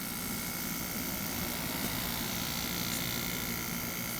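Window air conditioner's fan running steadily, a whir with a faint high whine over it.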